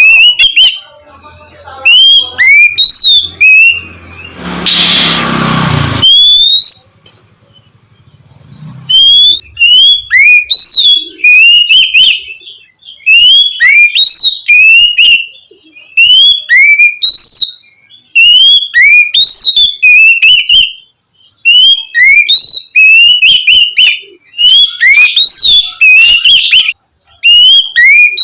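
Oriental magpie-robin (kacer) singing its loud 'ngeplong' song: runs of clear whistled notes, each a quick rise and fall, repeated in phrases with short pauses. A brief rushing noise interrupts the song about five seconds in.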